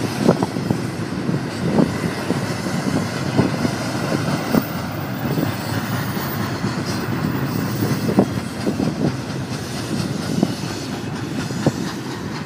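Freight train of double-stack container well cars rolling past: a steady rumble with irregular wheel clicks and clanks over the rail joints. Near the end the last car goes by and the sound eases a little.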